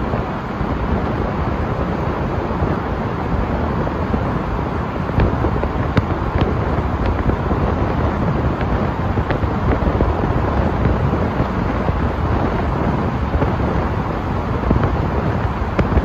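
Steady rush of tyre, road and wind noise from a car driving through a road tunnel, heavy in the low end, with a few faint ticks scattered through.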